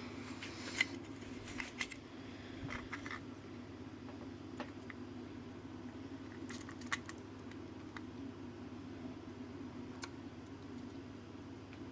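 Scattered light clicks and taps from handling the small parts of a disassembled mini smartphone: a few in the first three seconds, a cluster around seven seconds and one more near ten seconds, over a steady low hum.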